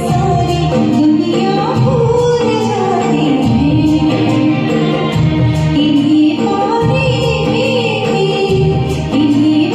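Karaoke singing of a Hindi film song: a sung voice gliding through the melody over a recorded backing track with a steady percussion beat.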